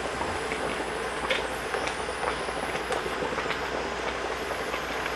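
Steady hiss of a stew simmering in a steel pot on an induction cooktop, with a faint high whine that wavers in pitch and a few light clicks of a spoon against the pot.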